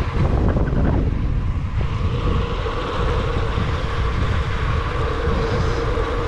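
Wind buffeting the microphone of a bicycle-mounted camera while riding, a steady low rumble with a constant hum from the moving bike underneath.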